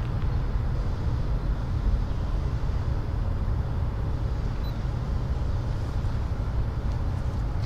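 Steady low rumble of a freight train rolling past.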